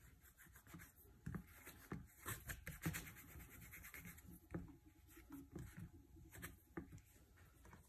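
Faint rubbing of a hand wiping marker off a whiteboard, with scattered light taps and knocks of the hand against the board.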